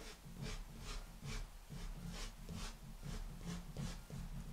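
A pastel stick rubbed across velour paper in short back-and-forth strokes, about two or three a second, as the shading is faded out.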